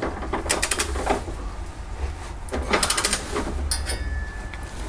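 Ratchet head of a click-type torque wrench clicking in short quick runs as it is swung back between pulls while a trailer-hitch bolt is tightened; the wrench has not yet reached its set torque.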